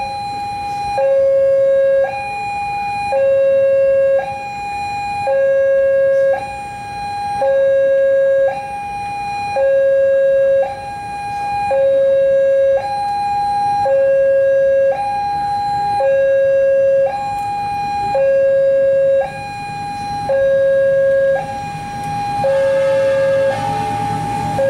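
Indonesian railway level-crossing alarm sounding its two-tone electronic warning, alternating a higher and a lower tone about a second each, the signal that a train is approaching and the crossing is closed. Near the end the low rumble of the arriving train rises beneath it.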